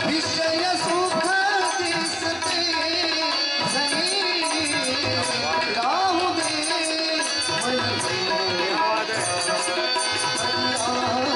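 Marathi devotional bhajan sung by male voices, accompanied by tabla and harmonium.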